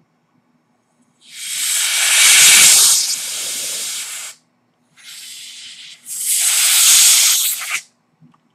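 Canned compressed air hissing through a thin extension straw in two long blasts, the second starting weakly, blown into the gap of a sticky Cherry MX Blue key switch to clear out the debris that makes it stick.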